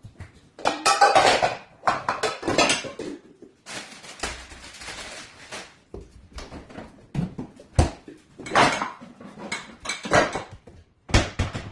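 Dishes, pots and cutlery clattering irregularly as they are handled and stacked, with a few seconds of steady rushing noise in the middle.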